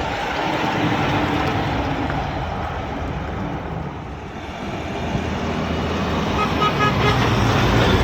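Highway traffic with trucks going by: steady tyre and engine noise that swells as vehicles pass, about a second in and again in the second half. A few short, high beeps sound about two-thirds of the way through.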